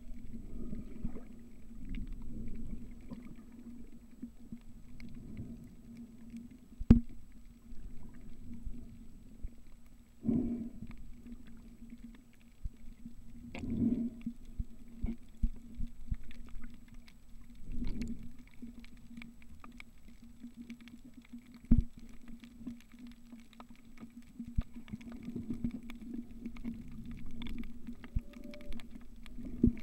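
Underwater sound from a camera held below the surface while snorkeling: muffled water rumble over a steady low hum, swelling every few seconds, with a few sharp clicks.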